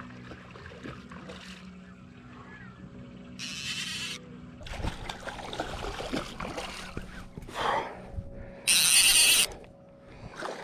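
Hooked lake trout thrashing and splashing at the water's surface as it is reeled up to the boat, in several bursts, the loudest about nine seconds in. A steady low hum runs under the first few seconds.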